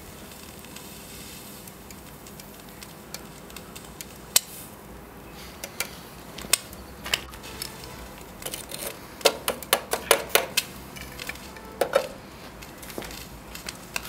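Irregular sharp metallic clicks and clinks around the cooling thermite residue and its tray. They come singly at first, then in a quick cluster about two-thirds of the way through.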